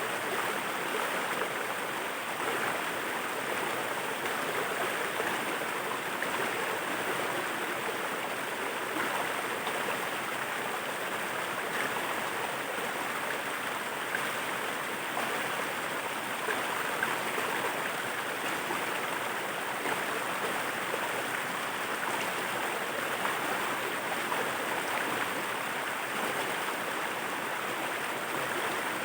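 Waterfall's falling water rushing steadily, an even hiss that does not change.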